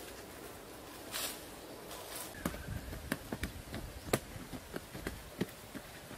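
Short-handled hand tools chopping into packed clay soil while digging a pit: a run of irregular sharp knocks and thuds, with a brief scrape of loose earth about a second in.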